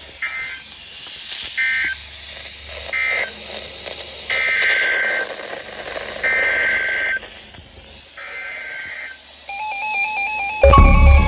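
Emergency Alert System SAME data bursts, each a buzzy warble of two alternating tones. Three short end-of-message bursts come about 1.3 s apart, then three longer header bursts about 2 s apart. Near the end a stepping electronic tone pattern starts, and loud electronic music cuts in.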